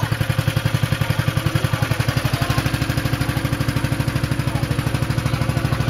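Small passenger river boat's engine running steadily with a fast, even throb, heard from inside the boat's covered cabin.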